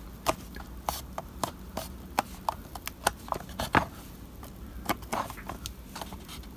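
Irregular light clicks and taps of fingers handling a small card-and-plastic model building and pressing along a freshly glued plasticard strip on its roof.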